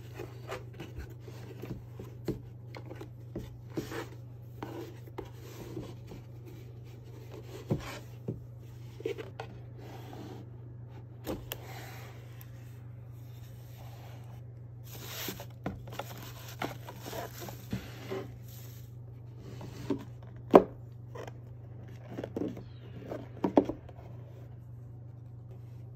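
Hands untying a braided fabric cord and handling a cardboard gift box: rubbing, scraping and light taps of cord and card, with two sharper knocks near the end, the loudest sounds. A steady low hum lies under it all.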